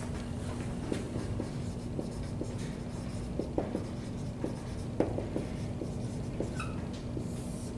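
Dry-erase marker writing on a whiteboard: a run of short squeaks and taps as words are written, over a steady low room hum.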